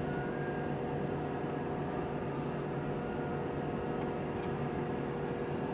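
Steady machine hum with several fixed tones over a hiss, the room's background noise, with a few faint ticks near the end.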